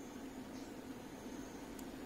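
Faint steady hiss of background room noise, with one faint click near the end.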